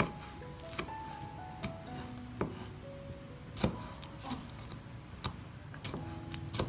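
Knife work on a wooden cutting board, with irregular knocks and scraping about once a second, over soft background music.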